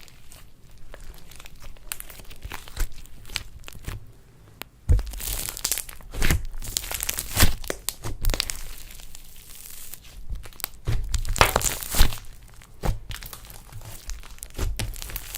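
Slime being squeezed and stretched by hand, giving irregular pops and clicks, with a few louder clusters around the middle.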